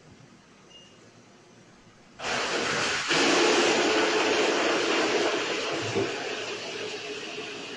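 A loud rushing hiss that starts suddenly about two seconds in, grows louder a second later, then slowly dies away.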